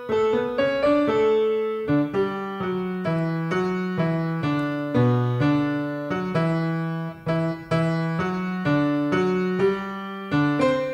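Piano playing slow, gentle chords and notes, each struck and left to decay.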